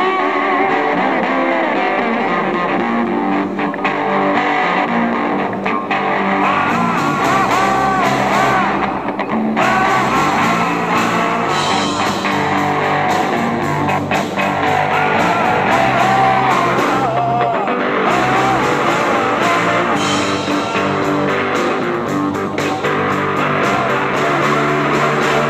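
Live electric blues band playing: electric guitar and bass guitar, with a man singing over it.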